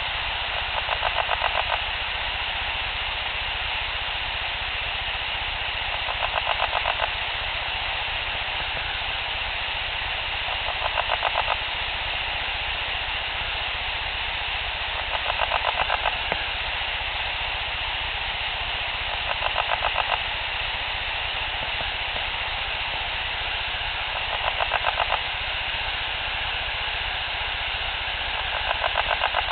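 An unidentified throaty call: a rapid pulsing rattle about a second long, repeated seven times at regular intervals of four to five seconds over a steady night-time hiss. The recordist has never heard it before and cannot name it.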